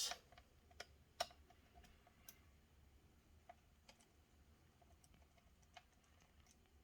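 Near silence with a few faint, irregular clicks and taps of hands handling laptop parts, the sharpest about a second in.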